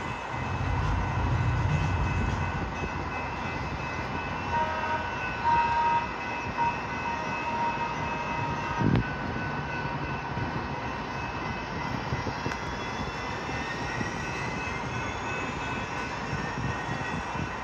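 San Diego Trolley light-rail train moving through the station with a steady electric hum and wheel noise. A few short tones sound about five seconds in, and there is a single knock about nine seconds in. Near the end a whine rises slowly in pitch.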